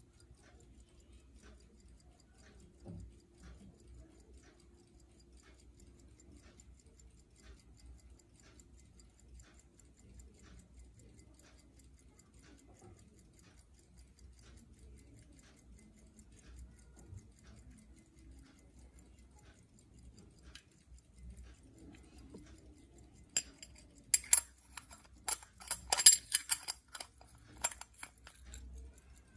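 Hampden 'Dueber' grade 18-size, 15-jewel pocket watch movement running, ticking faintly and evenly. Near the end, loud, irregular clicks and knocks as the watch case is handled and turned over.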